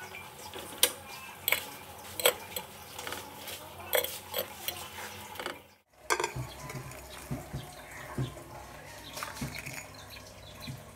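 Metal kitchen tongs clicking and clattering against a nonstick frying pan as fried bread slices are handled, with a few sharp clicks in the first half. After a brief dropout near the middle come softer knocks as the toast is stacked onto a plate.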